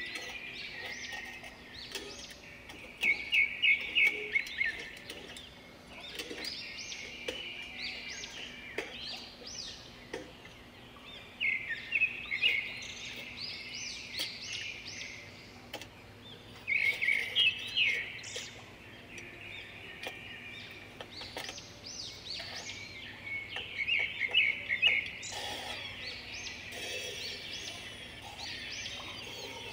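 Songbirds singing: bursts of rapid, high chirping phrases every few seconds over a faint steady background.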